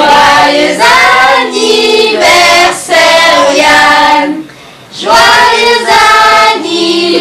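A group of voices, children and women among them, singing together in sung phrases, with a short break about four and a half seconds in; a birthday song sung to a toddler before a candle-lit cake.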